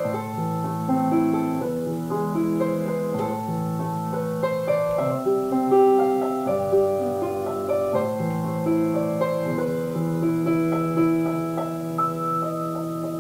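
Piano music: held chords under a slow melody.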